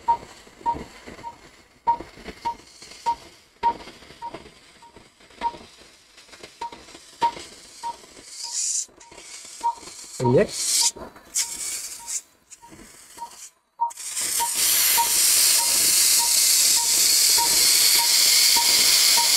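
Operating-theatre patient monitor's pulse beep, a short high tone repeating evenly about every 0.6 s, with faint clicks. About 14 s in, a loud steady hiss starts and holds.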